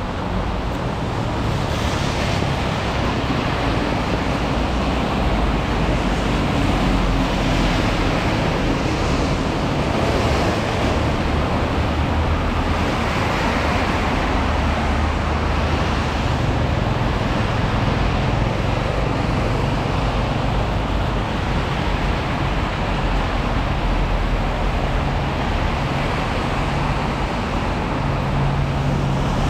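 Steady rain and road traffic on wet pavement: a continuous hiss of rain and tyres with a low rumble, and a low engine hum that swells and fades as vehicles pass.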